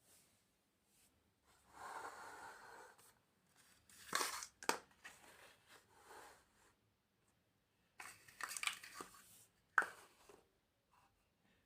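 Small plastic building-block pieces being handled and pressed together: scattered sharp clicks and crackles, with a short crinkling rustle about two seconds in.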